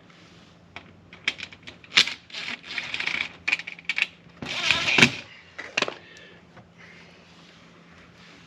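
Irregular clicks, knocks and rattles of small metal hardware and tools being handled while fitting a storm door closer, with a louder, denser rattle about four and a half seconds in. The sounds stop about six seconds in, leaving a low hum.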